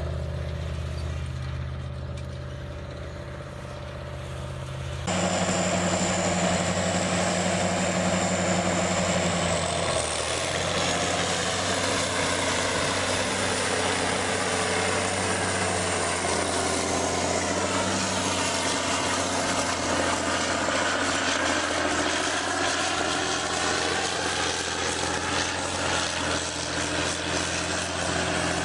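Heavy tractor engines working under load. First a four-wheel-drive tractor pulls a disc harrow, and the sound changes abruptly about five seconds in to a rubber-tracked tractor towing a Caterpillar pull scraper through dirt. Its engine runs steadily, with the pitch rising and falling slightly.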